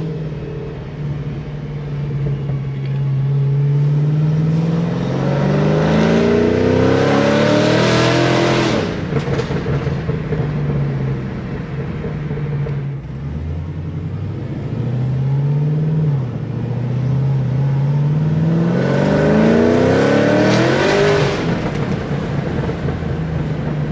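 Supercharged 6.2 L V8 of a 2009 Cadillac CTS-V running through longtube headers, a catless Corsa X-pipe and Corsa Extreme mufflers: a steady exhaust note at low revs, then two hard accelerations with the revs climbing for several seconds each. The first pull cuts off abruptly about nine seconds in.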